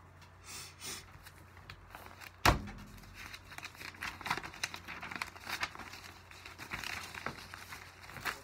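Sheets of paper rustling and crinkling as a paper packet is handled and leafed through, in many short crisp rustles, after a single sharp knock about two and a half seconds in.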